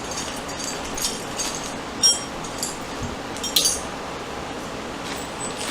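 Small metal hardware (a pin and cotter pins) clinking as it is handled, a handful of light clinks with a brief high ring, the loudest about two seconds in and another pair around three and a half seconds in, over a steady background hiss.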